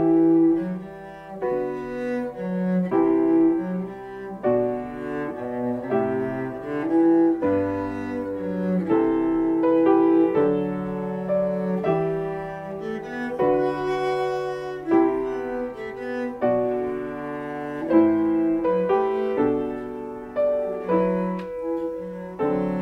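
Small string ensemble of violins with piano accompaniment playing a lyrical romance: long bowed notes over piano chords.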